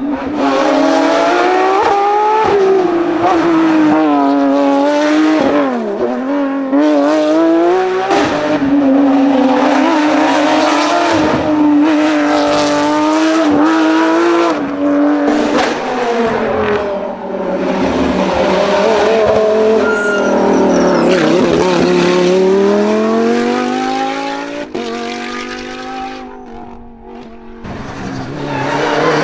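Racing car engine at high revs on a hillclimb, its pitch rising through each gear and dropping at the shifts and lifts as the car climbs past. It dies away near the end as another engine starts to rise.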